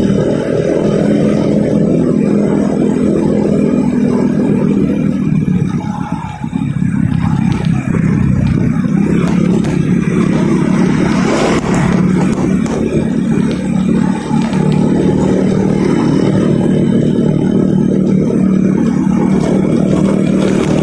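Motorcycle engine running steadily while riding in town traffic; the engine eases off briefly about six seconds in, then picks up again.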